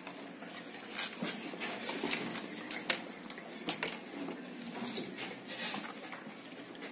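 Scattered light clicks and rustles at irregular moments over a steady hiss, the sound of paper puppet cutouts being handled and moved.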